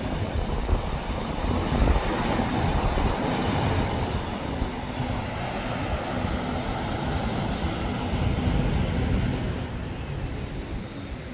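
Rushing mountain stream tumbling over boulders: a steady whitewater hiss, louder through the middle and easing a little near the end, with wind rumbling on the microphone.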